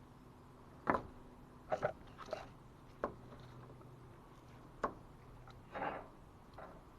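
Scattered light clicks and knocks, about six over several seconds, as small installation parts such as corner pieces are picked up and set down, over a faint steady hum.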